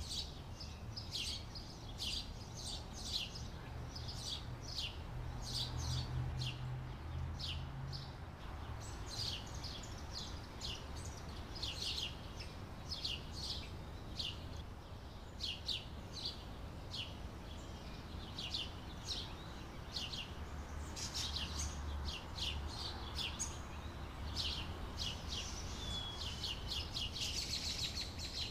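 House sparrows chirping: a continuous run of short, sharp chirps, several a second, over a low steady hum.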